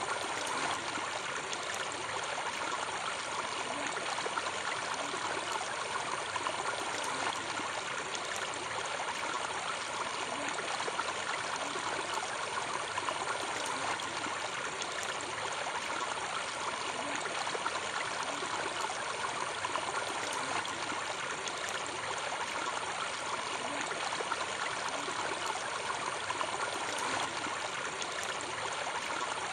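Pond water splashing and rushing steadily, churned by a dense crowd of feeding fish at the surface, with no single splash standing out.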